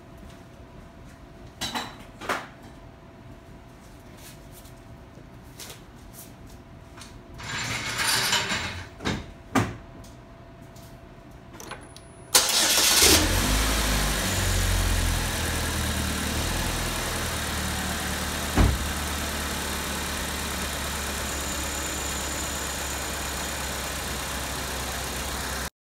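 GM 2.4 L Ecotec LEA four-cylinder engine, freshly swapped in, starting about twelve seconds in: it catches suddenly, flares up briefly, then settles into a steady idle. Before the start there are a few sharp clicks and a short rustle.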